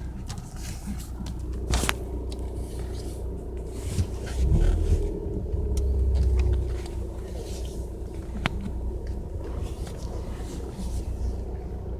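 2015 Ford Mustang's 2.3-litre EcoBoost turbocharged four-cylinder running, heard from inside the cabin while driving; the rumble swells louder for a few seconds in the middle as the car accelerates, the condition under which the owner hears a strange vacuum-cleaner-like noise. A couple of sharp clicks cut through.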